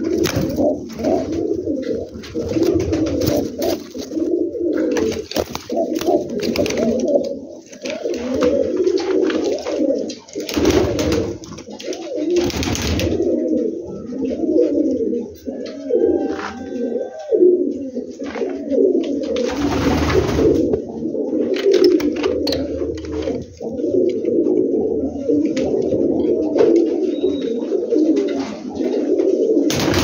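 Domestic pigeons cooing without pause, several birds overlapping. A few brief rustling noises come through in the middle.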